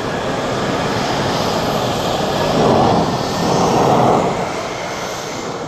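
Mitsubishi F-2 fighter jets' single turbofan engines running at high power for takeoff, a loud steady jet noise that swells twice, about three and four seconds in, then eases off.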